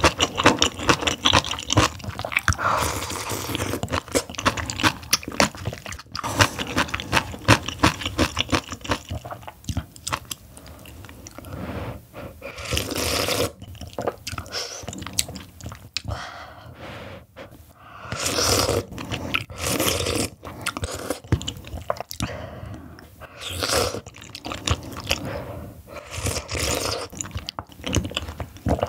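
Close-miked eating of maesaengi oyster kalguksu and kimchi: wet chewing and crunching with clicks and scrapes. Several longer noisy stretches of about a second each, typical of slurping noodles and broth.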